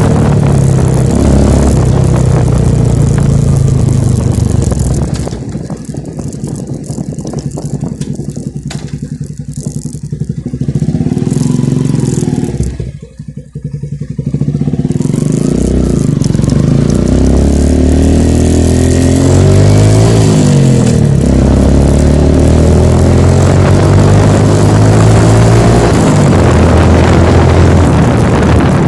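Motorcycle engine running loud through an Akrapovic muffler with the silencer insert removed. It drops to a quieter idle about five seconds in, nearly cuts out around the middle, then comes back loud with the revs rising and falling.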